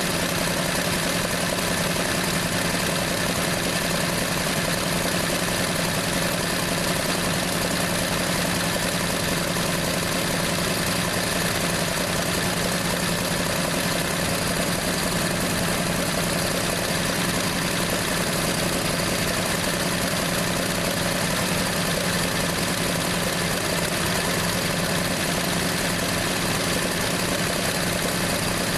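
1968 Plymouth Valiant's slant-six engine idling steadily, warming up after a cold start on a freshly fitted carburetor and manifolds.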